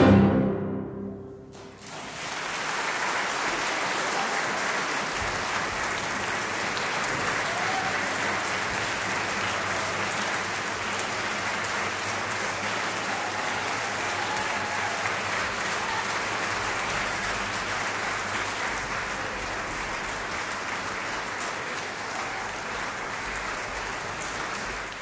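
The final chord of piano and string orchestra rings out and dies away in the first second or two, then steady audience applause takes over and carries on.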